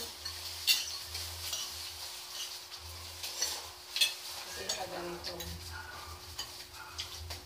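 Eating at a table: cutlery and dishes clinking, with a sharp click about a second in and another about four seconds in, over a faint steady hum.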